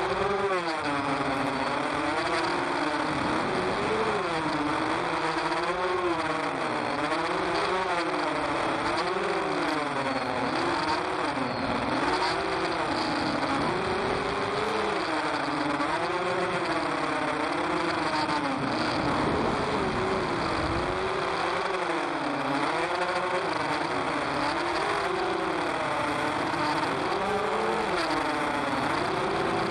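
Tilt FPV racing drone's motors and propellers whining, heard from its onboard camera. The pitch rises and falls every second or two as the throttle changes through the track's turns, over a steady rush of prop and air noise.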